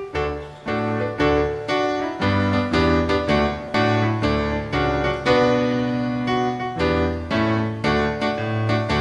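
Instrumental introduction of a university march anthem on keyboard, with full chords and bass notes struck in a steady marching rhythm, leading into the sung verse.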